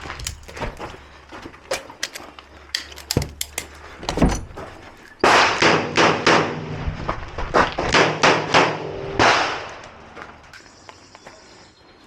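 A string of .38 Special revolver shots from a Ruger GP100 Match Champion, fired in quick succession with echoing reports. The densest, loudest run of shots falls in the middle, after scattered lighter knocks and clicks in the first few seconds.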